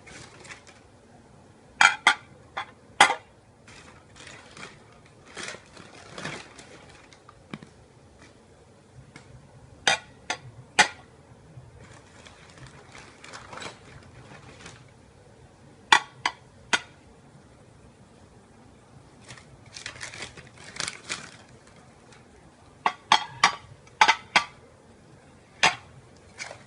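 IKEA dinner plates clinking against each other as they are handled, in small groups of sharp, ringing clinks, with softer handling rustle between.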